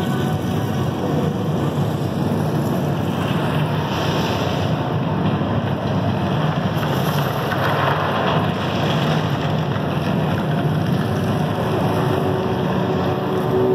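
Sound-effect passage of a light-projection show's soundtrack over loudspeakers: a steady rushing noise with no tune, swelling about halfway through. Music follows it.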